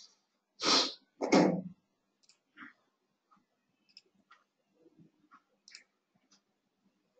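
Faint, scattered computer mouse and keyboard clicks, a few a second, while text is edited on a computer.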